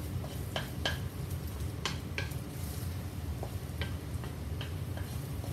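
Wooden spatula stirring eggs in a hot wok, with irregular scrapes and taps of the spatula on the pan and a faint sizzle, over a steady low hum.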